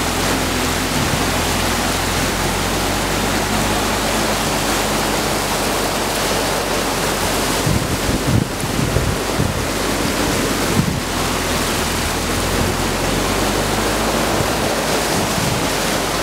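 Flat-bottomed swamp boat running steadily at speed, its engine a constant low drone under loud wind on the microphone and water rushing and spraying off the hull. A few louder bumps and gusts come about eight to eleven seconds in.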